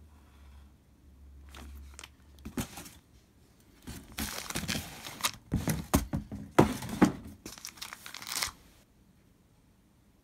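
Clear plastic outer sleeve of a 12-inch vinyl LP crinkling and rustling as the record is handled and lifted out of its cardboard box. The noise is intermittent at first, grows dense and loudest for about four seconds, and then stops.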